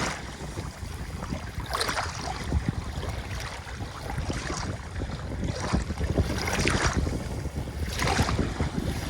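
Ocean waves washing and splashing on a shore, a fresh wash every two seconds or so, over a steady low rumble of wind on the microphone.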